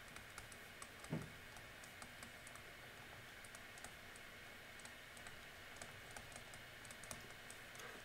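Faint, irregular light clicks and taps of a stylus on a tablet screen during handwriting, over quiet room tone, with one brief low sound about a second in.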